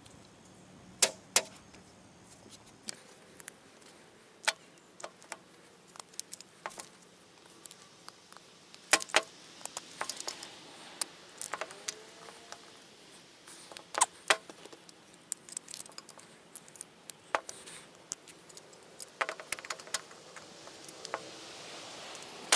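Irregular sharp clicks and clinks of small hard craft tools being handled: paintbrushes, pliers and little glass enamel-paint bottles picked up, opened and set down on a tabletop.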